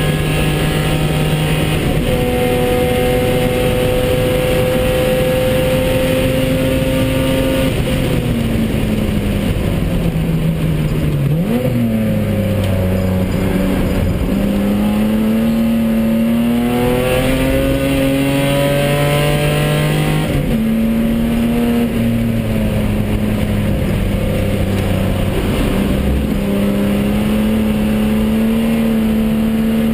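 BMW E30 325i's straight-six engine at racing speed, heard from inside the cabin. The revs fall from about 8 s to 11 s, with a short sharp rise about 11.5 s in. They sink again, then climb steadily from about 14 s to 20 s, step down and rise again toward the end.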